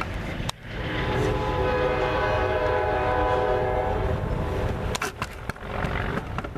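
Amtrak train's horn blowing one long steady blast, starting about a second and a half in and lasting about three seconds, over the low rumble of the train. A few sharp clicks follow near the end.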